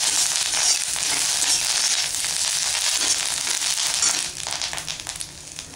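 Curry leaves frying in hot oil in an iron kadhai, sizzling and crackling while a metal spatula stirs them; the sizzle fades near the end.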